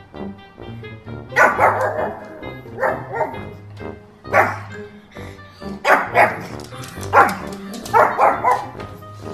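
A pug barking in short, loud bursts, about eight or nine barks, some coming singly and some in quick runs of two or three. The barks sit over background music.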